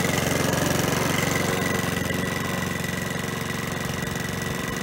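Mountfield RS100 petrol lawnmower's single-cylinder four-stroke engine running steadily and smoothly as the mower is pushed across the lawn.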